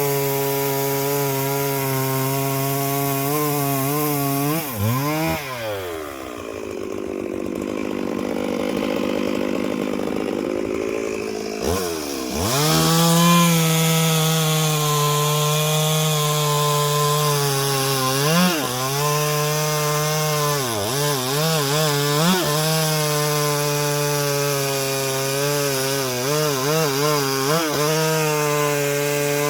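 Two-stroke chainsaw running at high revs through wood. About five seconds in it drops to a quieter idle for roughly six seconds, then revs back up and cuts again, its pitch dipping briefly several times as the chain bogs under load.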